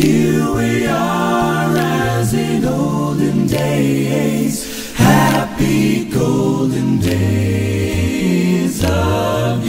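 Music: a group of voices singing together a cappella in harmony, with held low bass notes that change pitch every second or so.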